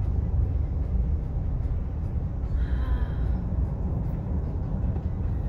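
Steady low rumble of engine and tyre noise inside a moving car's cabin as it drives along the highway.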